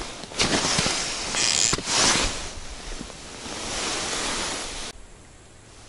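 Wind buffeting the microphone in gusts out on the open ice, a rushing noise that swells and fades several times, then drops abruptly to a quiet hiss about five seconds in.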